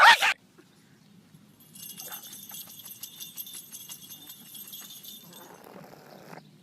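Rapid metallic jingling, like small bells being shaken, starting about two seconds in and lasting about three seconds, followed by a short soft rustle.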